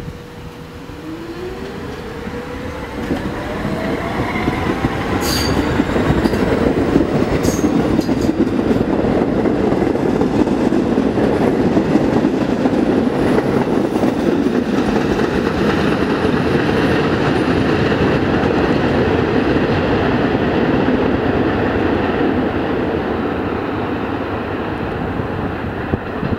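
St. Louis Car Company R44 subway train pulling out of a station: its traction motors whine in several tones rising in pitch as it accelerates from a stop. The wheels then rumble and clatter steadily over the rails as the cars pass, with a couple of brief high squeaks early on, before the sound eases as the train moves away.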